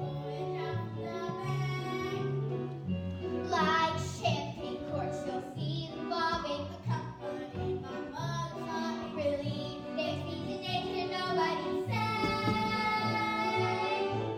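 Children singing a musical-theatre number over instrumental accompaniment, ending on a long held note near the end.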